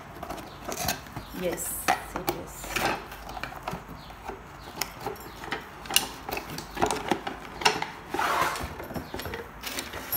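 Rustling and crinkling of plastic wrap and cardboard packaging, with many light clicks and knocks, as a cookware set and its bamboo kitchen tool set are handled and pulled out of their box.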